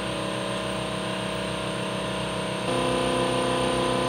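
Electric power tool running steadily on a small steel gusset plate held in a vise. It makes a hum with several steady tones that shifts in pitch and gets a little louder about two and a half seconds in.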